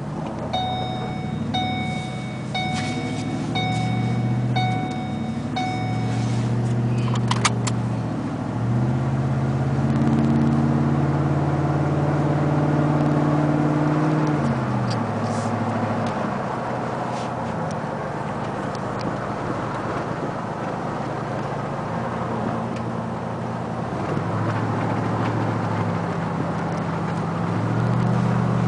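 The 2010 Ford F-150's V8 exhaust through a Flowmaster 40 Series muffler, heard inside the cab while driving. The note climbs under acceleration and drops at each gear change. In the first few seconds an electronic chime repeats about once a second.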